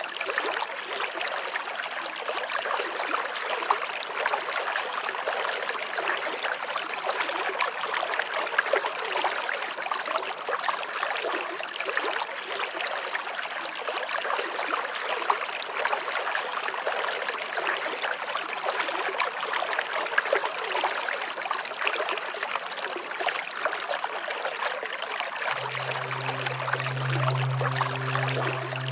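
Steady trickling and splashing of water in a goldfish aquarium. Low music notes come in near the end.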